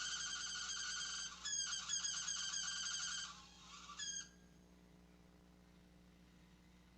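Failing CPU cooler fan in a Dell computer squealing with a high whine. It turns into a fast warbling stutter, gives one last short squeal about four seconds in, and stops as the fan quits.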